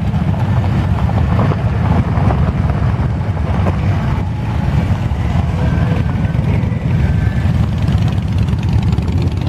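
Many motorcycle engines running at low speed as a line of bikes rolls in, a steady low rumble with no single engine standing out.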